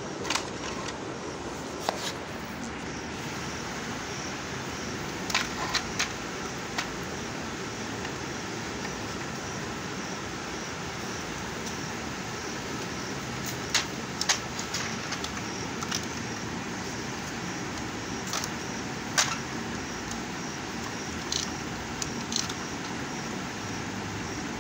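Scattered plastic clicks and taps from handling a disassembled toy RC car's shell, wiring and gearbox, over a steady background hum.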